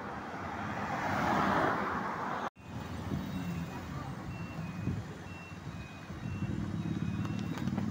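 A car drives past close by, its tyre and engine noise swelling and fading within the first two seconds. After an abrupt cut comes road traffic, with low engine sound growing louder as cars approach and a faint high-pitched beep repeating roughly twice a second.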